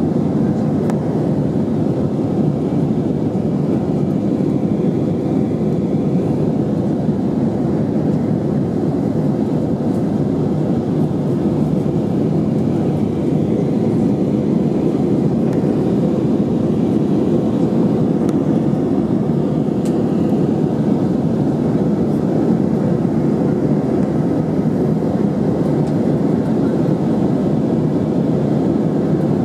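Steady rushing noise of engines and airflow inside the cabin of an Airbus A319 in flight.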